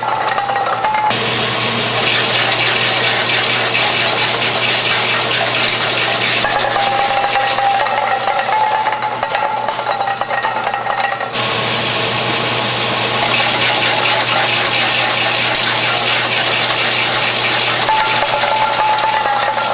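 Overcapping machine with its cap loader running on a container conveyor line: a loud, steady mechanical rush with hiss, and a thin steady whine that drops out about a second in and comes back twice later.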